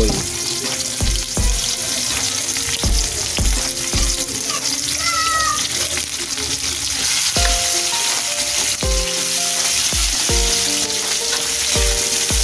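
Sliced raw pork sizzling in hot oil in a steel wok with sautéed tomato, onion and garlic, with a steady hiss of frying and some stirring with a metal ladle. Background music with a regular beat plays underneath.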